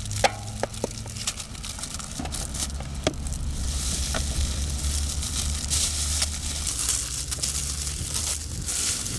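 A plastic bag crinkling and rustling as gloved hands pull bread out of it, with a few sharp clicks in the first second or so and a steady low hum underneath.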